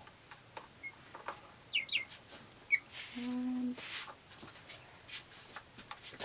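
Silkie chicks peeping: a few short, high chirps, with a brief low hum partway through and some light clicks.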